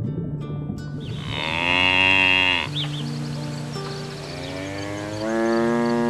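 A cow mooing twice. First comes a long moo about a second in, then a second moo that rises and is held near the end. Each call drops in pitch as it stops.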